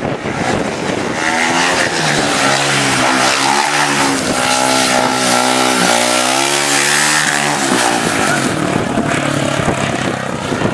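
Speedway motorcycle's 500cc single-cylinder methanol engine running hard on a shale track. Its note wavers up and down as the throttle is worked through a broadsiding turn and onto the straight.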